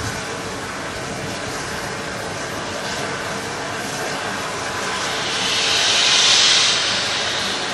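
LMS Fowler 4F 0-6-0 steam locomotive hissing steam, with a louder rush of steam from the open cylinder drain cocks rising and fading over about two seconds near the end.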